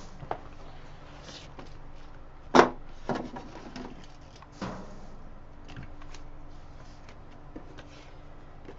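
Handling noise as a large spiral-bound paper chart is set up against a whiteboard: a few sharp knocks, the loudest about two and a half seconds in, with light paper rustling between them.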